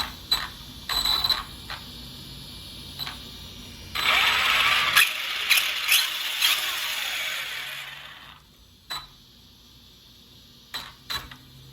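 Arrma Typhon RC buggy's newly installed brushless motor test-run through the drivetrain: a few sharp clicks, then about four seconds in a loud whirring with a whine that rises and falls as it is throttled, dying away after about four seconds, followed by a few more clicks. The new motor runs properly.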